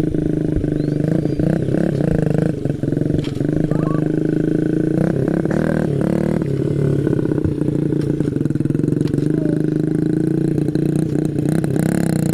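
Honda CRF50 dirt bike's small 49 cc four-stroke single-cylinder engine running steadily, its pitch wavering slightly.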